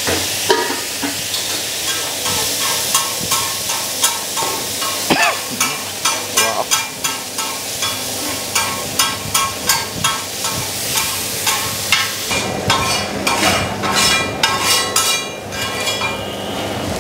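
Keema sizzling in desi ghee on a large flat tawa, while a metal spatula repeatedly clanks and scrapes against the tawa as the mince is stirred and chopped. The ringing strikes come about two or three a second and grow busier over the last few seconds.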